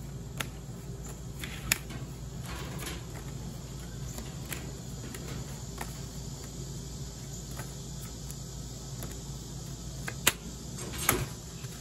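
Playing cards being handled and dealt onto a metal mesh table: a few sharp card snaps and taps, the loudest about a second and a half in and twice near the end, over a steady chirring of insects.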